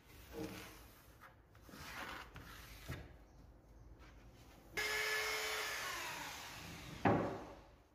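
A steel tape measure's blade is pulled out of its case with a steady rasping whir for about two seconds, ending in a sharp knock. Before that come soft scratches of a pencil and hands rubbing on a melamine board.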